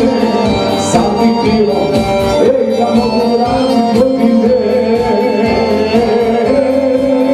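Live band playing a song with a steady beat of about two strokes a second, with singing over it, loud and unbroken through the sound system.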